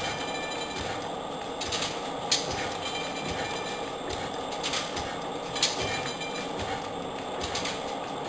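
1898 Furnival hot-tube-ignition gas engine running, belted to a printing press: a steady mechanical clatter broken by a sharp knock every two to three seconds.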